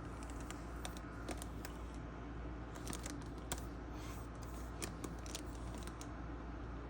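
Irregular light clicks and ticks, a dozen or more scattered over several seconds, over a steady low hum.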